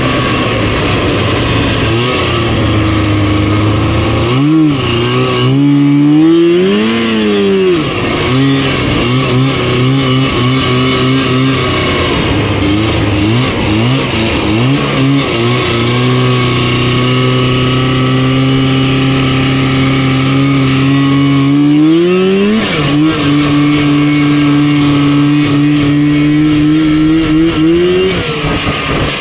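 Rotax 503 two-stroke twin engine of a Lynx snowmobile, revved up and down several times, then held at steady high revs for long stretches. It climbs higher about two-thirds of the way in and eases off near the end.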